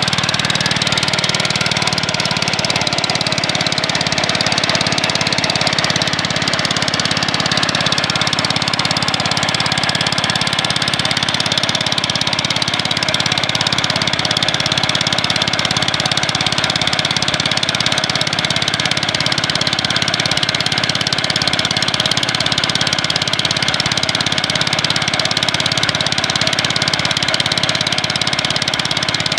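Small engine of a wooden outrigger fishing boat running steadily while under way.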